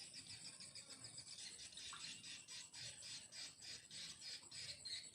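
Faint insect chorus: a rapid pulsed chirping, about five pulses a second, over a steady high-pitched whine.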